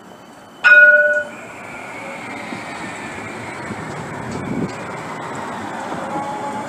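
CAF Urbos 3 tram gives one short, loud blast of its warning horn, then runs past. Its rolling noise swells and a high electric whine slowly falls in pitch.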